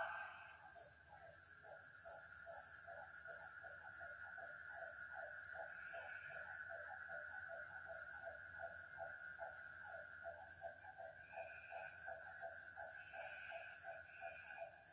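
Forest animal sounds: a fast, even series of short downward-sliding calls, about three a second, over a steady high insect drone.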